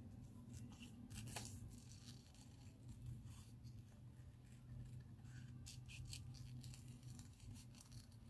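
Small craft scissors snipping paper while cutting out a picture: faint scattered snips, a couple about a second in and a quicker run past the middle, over a low steady hum.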